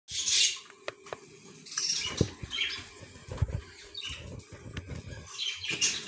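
Budgerigar chicks moving in the nest box: rustling and scrabbling with short, high, hissy calls, and a few sharp clicks and low bumps close to the microphone.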